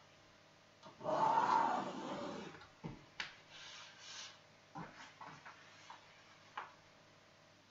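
A large clear acrylic sewing ruler slid across cotton fabric and a cutting mat, a rubbing swish about a second in that lasts about a second and a half. Several light clicks and taps follow as the ruler and a tape measure are set down and picked up.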